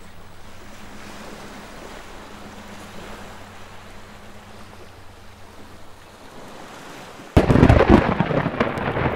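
A faint steady hiss, then about seven seconds in a sudden loud crash of thunder that runs on into dense crackling rain: a storm sound effect.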